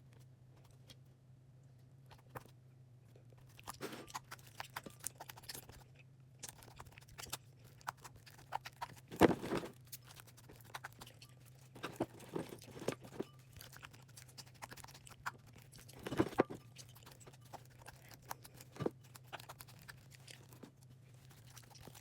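Glue slime being mixed with Elmer's activator in a bowl: irregular wet squishes and sticky clicks, louder bursts about nine and sixteen seconds in, over a faint steady hum.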